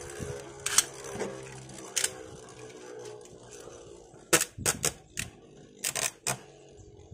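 Drain Fafnir Beyblade spinning in a plastic stadium with a faint steady whir, then a run of sharp clicks about four to six seconds in as a thin stick knocks against the spinning top.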